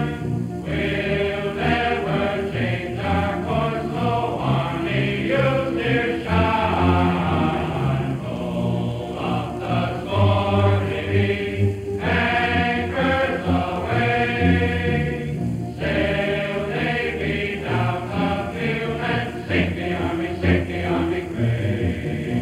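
Choral music: many voices chanting in held, changing notes.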